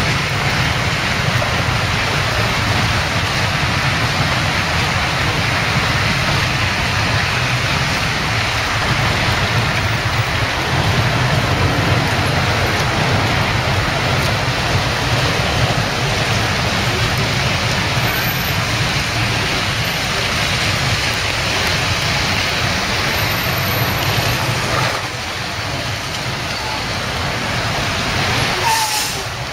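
Strong typhoon wind rushing steadily, with gusts rumbling on the microphone; it eases somewhat near the end.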